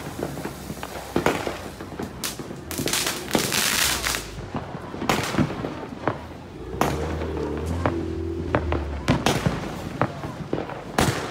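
A 'Saturday Night Special' aerial repeater fireworks cake firing, a string of sharp launch thumps and shell bursts about once a second. There is a dense spell of hissing crackle about three to four seconds in.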